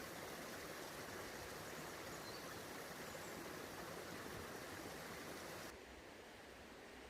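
Small waterfall running: a steady rush of water. About five and a half seconds in, it drops suddenly to a quieter hiss.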